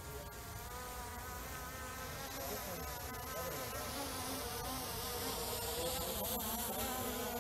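Quadcopter drone propellers buzzing with a steady, slightly wavering whine as the drone descends, growing gradually louder as it comes down.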